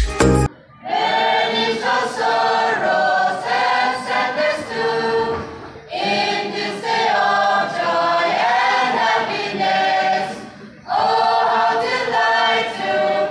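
A large mixed choir singing together in long phrases. It comes in about a second in, after a short burst of electronic music, and pauses briefly twice between phrases.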